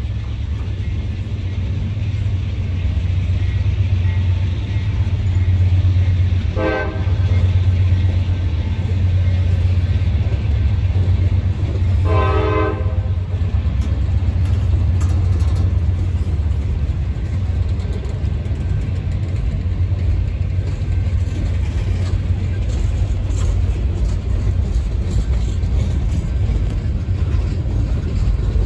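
Freight cars of a long train rolling past close by, wheels on rail making a steady heavy rumble. A horn sounds twice: a short blast about six seconds in and a longer one about twelve seconds in.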